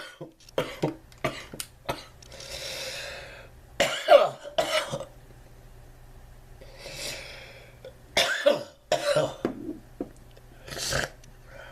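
A man coughing in several bouts of short, hacking coughs, around a second in, around four seconds, around eight to nine seconds and near the end, with long breaths between the bouts.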